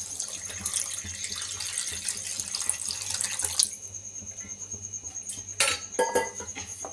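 Water poured into a wide frying pan in a steady stream, stopping suddenly about three and a half seconds in. A few sharp knocks follow, a wooden spatula striking the pan.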